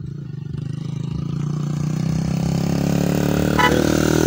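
A motor vehicle's engine accelerating, its pitch rising steadily as it gets louder, with a brief click about three and a half seconds in.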